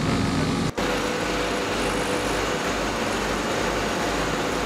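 Diesel engine of a tracked asphalt paver running steadily while laying asphalt, a constant machinery din with a faint steady hum. The sound breaks off for an instant under a second in, then carries on.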